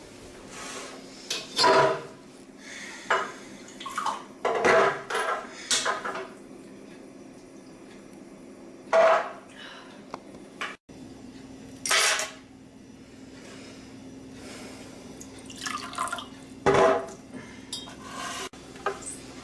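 Irregular clinks and clatters of hard objects, about ten over the stretch, some ringing briefly, over a faint steady hum.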